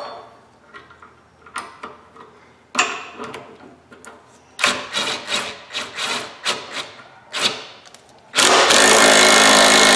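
Sharp metal clicks and rattles as a bearing puller is fitted to a wheel hub. About eight seconds in, a cordless impact tool runs hard for about two seconds on the puller's forcing screw, pulling the old wheel bearing's inner race off the hub.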